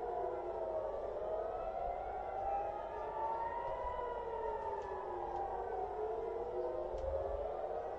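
Civil defense air-raid sirens wailing, several at once and out of step, each tone slowly rising and falling. They are sounding a missile-attack alert.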